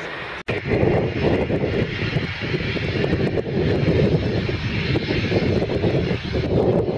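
A turboprop overhead, cut off abruptly about half a second in; then a private jet's engines running on the runway, a loud, uneven noise.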